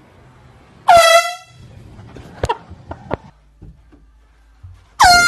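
Air horn blasting twice: a loud blast of about half a second a second in, its pitch sliding down as it starts, and another blast beginning near the end. A few sharp knocks fall between them.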